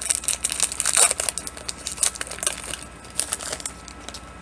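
Crinkling and tearing of a trading card pack's wrapper as it is torn open by hand. The rustle is busy at first and thins out near the end.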